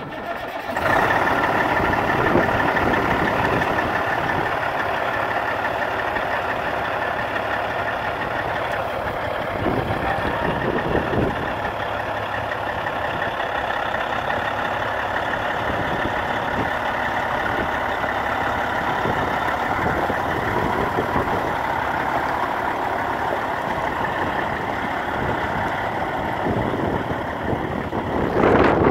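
Caterpillar C15 inline-six diesel engine of a Peterbilt 379 truck tractor idling steadily, coming in about a second in.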